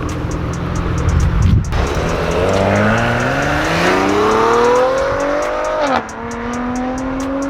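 Car with a muffler delete accelerating hard: the exhaust note climbs steadily for about four seconds, drops sharply at an upshift, then climbs again more slowly. Before the climb the engine holds steady, with a brief break about a second and a half in.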